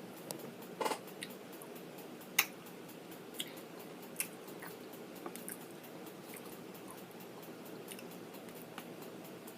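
A person eating: quiet chewing with a few short, sharp mouth clicks, the clearest about a second in and again at about two and a half seconds.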